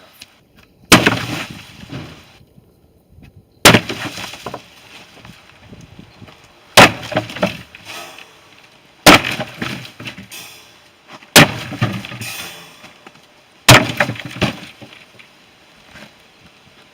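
Six hard blows, about two and a half seconds apart, each followed by a short clatter of breaking, scattering material.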